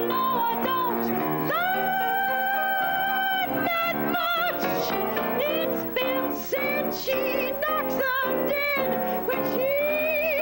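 A woman singing a jazzy pop song over piano accompaniment. She holds one long high note about a second and a half in, then sings quick, wavering runs of short notes.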